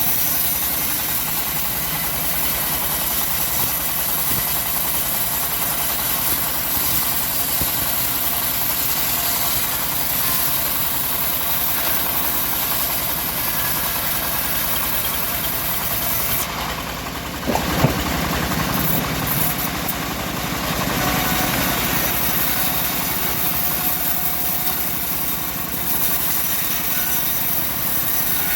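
Homemade bandsaw mill running steadily as it cuts a teak log. About 17 seconds in the sound dips briefly, and a single sharp knock follows.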